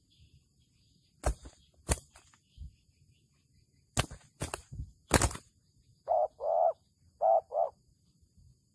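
Spotted doves fighting: a run of sharp wing slaps as the birds strike at each other, then two pairs of short low cooing notes from a dove.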